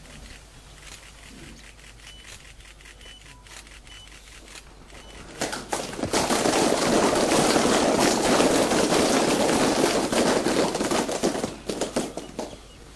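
A seated gathering clapping with cupped hands, the Fijian cobo, for about seven seconds, starting about five seconds in: the customary response when a chief has drained his cup of yaqona (kava).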